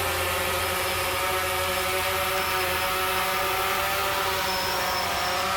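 Small quadcopter drone's electric motors and propellers whirring at a steady pitch.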